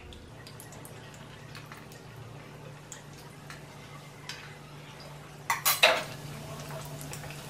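Metal spoon clinking and scraping against the side of a metal pot of frying oil, with a quick cluster of louder knocks about five and a half seconds in. Underneath, the oil sizzles faintly over a steady low hum.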